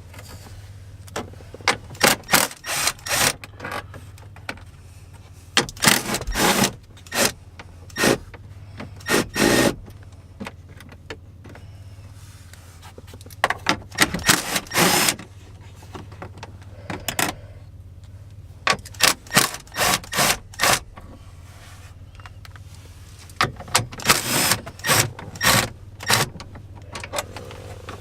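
Ratchet wrench clicking in repeated short runs as bolts are backed out, over a steady low hum.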